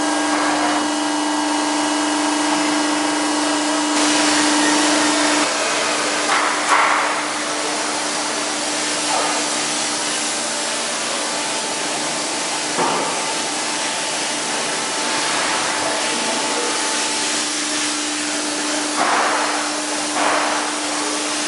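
ERMAK HAP 1270x35 CNC hydraulic press brake running: a steady mechanical hum and hiss, with a few short clunks spread through.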